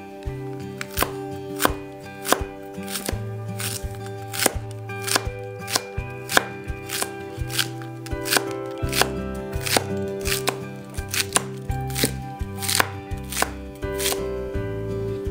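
Chef's knife shredding a stack of cabbage leaves on a wooden cutting board: a steady rhythm of sharp knocks as the blade cuts through and hits the board, about three cuts every two seconds, over background music.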